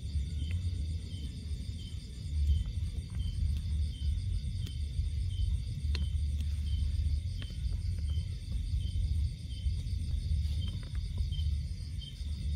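Night insects calling steadily: a high chirp repeating about twice a second over a fainter, faster pulsing trill. An uneven low rumble on the microphone runs underneath.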